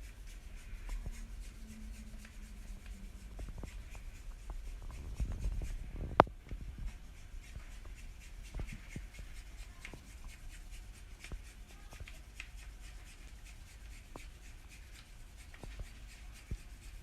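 Small kitchen handling sounds: light taps, clicks and rubbing as the cake is decorated with white chocolate, with one sharp click about six seconds in.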